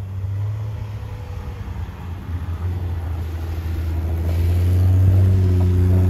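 Jeep Grand Cherokee engine pulling in four-wheel-drive low through deep snow, a steady low hum that grows louder about four seconds in.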